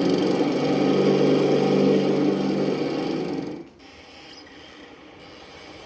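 Lawnmower engine running loudly and steadily while cutting grass, cutting off suddenly about three and a half seconds in, leaving a faint background hiss.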